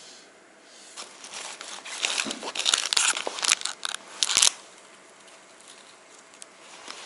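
A crinkly plastic snack-bar wrapper rustling and crackling as it is handled and torn open, loudest with a sharp burst about four and a half seconds in.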